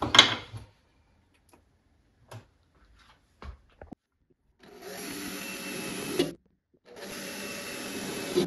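A sharp knock, a few light clicks, then a handheld power drill runs twice, about a second and a half each time, drilling a hole.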